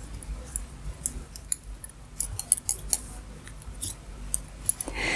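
Wooden double-pointed knitting needles clicking and tapping against each other at an irregular pace as stitches are worked. A brief breathy sound comes near the end.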